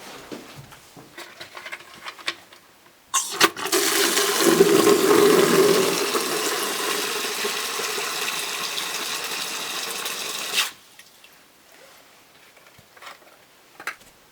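Water rushing for about seven seconds, starting with a couple of clicks, loudest early on, then cutting off suddenly.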